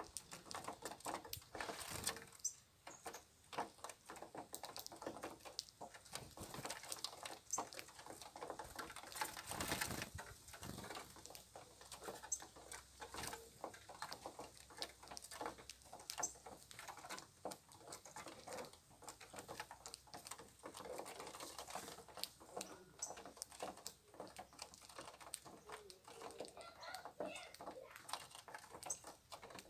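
Small birds, Brazilian tanagers and saffron finches, feeding on scattered food: a dense, irregular patter of pecks and taps with occasional faint chirps.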